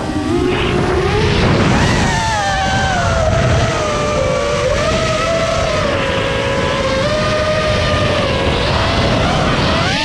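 Small multirotor (FPV-style) drone's motors and propellers whining, the pitch drifting up and down with throttle over a steady rush of wind and prop noise, with quicker swoops in pitch near the end.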